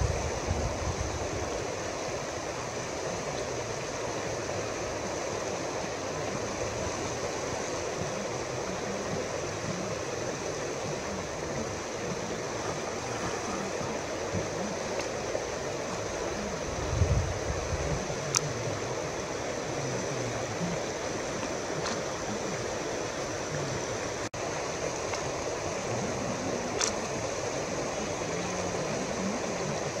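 Steady rush of flowing river water. There is a brief low rumble of wind on the microphone about 17 seconds in and a couple of faint clicks later.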